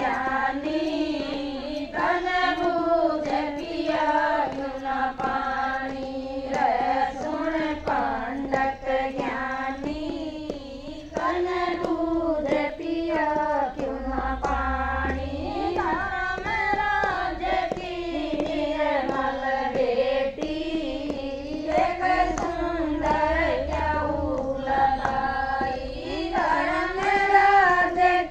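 Women singing a Hindi devotional bhajan, a continuous sung melody.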